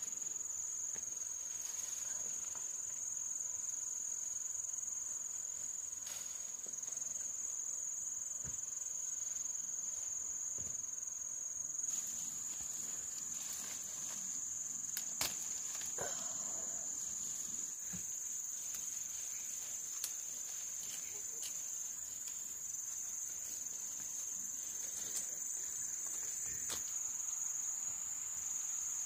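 A chorus of insects making one steady, high-pitched, unbroken drone, with a few faint knocks now and then.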